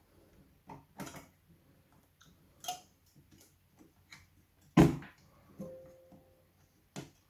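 Scattered clicks and knocks of computer parts being handled and fitted during a PC build, with one sharper knock about five seconds in.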